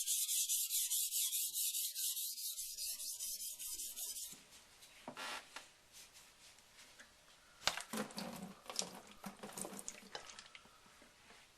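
Knife edge grinding on a 1000-grit waterstone in quick short back-and-forth strokes, a loud rasping hiss for about the first four seconds, then fainter, scattered scrapes of the blade on the stone.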